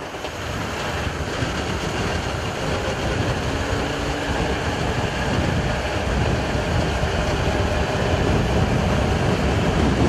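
Strong wind rushing and buffeting the microphone: a steady, rumbling roar that grows slightly louder over the seconds.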